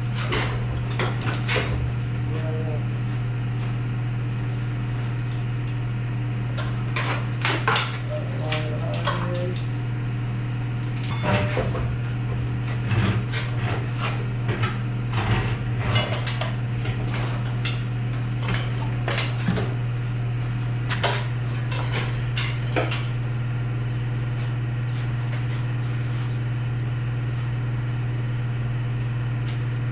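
Scattered metallic clanks and clinks of metal parts being handled, over a steady low hum. The clanking stops about 23 seconds in, leaving only the hum.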